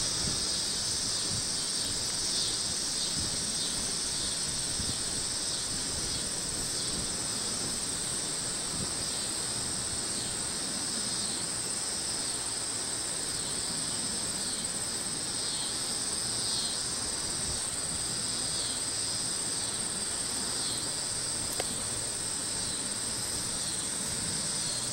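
Insects chirring: a steady high drone with pulsing chirps repeating about every second. Beneath it is a faint low rumble from the approaching Burlington Northern diesel freight.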